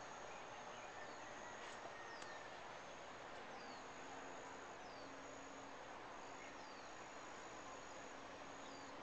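Faint insects trilling: a steady high-pitched trill, with short falling chirps about once a second, over a soft hiss.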